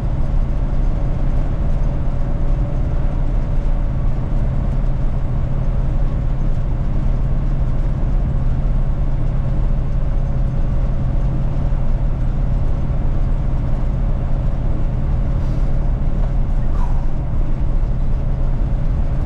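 1980 Chevy K20 pickup driving slowly, heard from inside the cab: a steady low drone of engine, drivetrain and road noise, with a faint steady whine held throughout.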